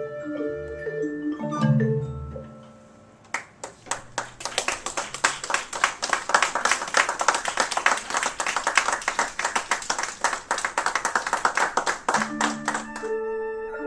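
Orff xylophones playing short mallet-struck notes. About three seconds in they give way to a long stretch of dense, rapid hand clapping. The xylophone notes come back about a second before the end.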